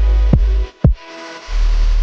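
Electronic background music with a heavy bass line, which drops out briefly about halfway through and then comes back in.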